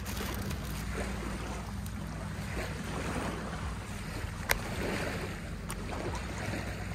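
Wind rumbling on the microphone, with light rustling from a plastic tortilla bag being handled and one sharp click about four and a half seconds in.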